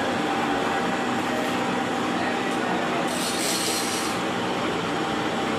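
Large milling machine running steadily while drilling a heavy steel workpiece, a dense mechanical noise with faint steady whines. A brief hiss comes in about three seconds in.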